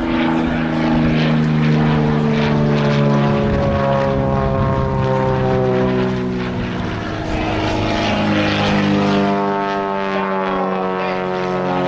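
Single-engine propeller plane's piston engine running in flight during a display manoeuvre. Its engine note slowly falls in pitch, rises again about seven seconds in, and drops once more near the end as the plane turns and passes.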